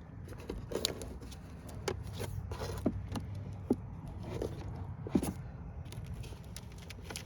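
Scattered small clicks, taps and scrapes of hands working at battery cable terminals and connectors, the sharpest click about five seconds in, over a low steady hum.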